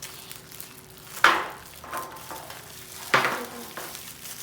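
Trading-card tin packaging being opened by hand: two sharp rustling tears about two seconds apart, each fading over half a second.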